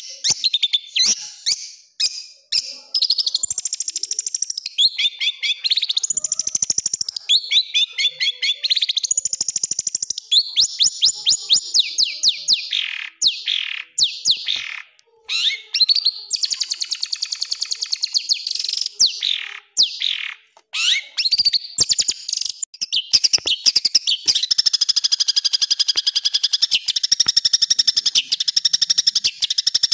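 Long-tailed shrike (cendet) singing a fast, varied song of rapidly repeated harsh notes and trills, with a few short pauses. About three quarters of the way in it runs into a long, continuous buzzy rattle.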